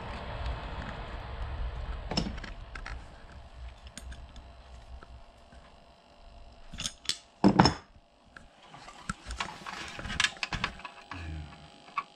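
Pliers and small metal cable fittings handled while a cable TV line's broken end is reworked: scattered clicks and clinks, with a cluster of sharper clacks about seven seconds in.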